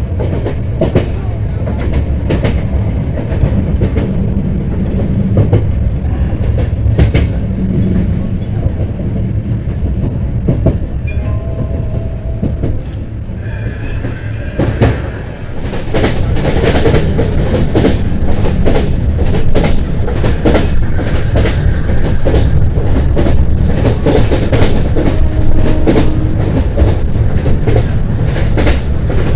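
Track sounds from a moving LHB passenger coach: a steady rumble of the wheels on the rails, with frequent sharp clicks and knocks over rail joints. It gets louder about halfway through.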